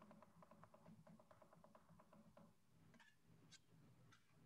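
Near silence: room tone with faint, quick, evenly spaced ticking that fades out about two and a half seconds in, then a few scattered faint clicks.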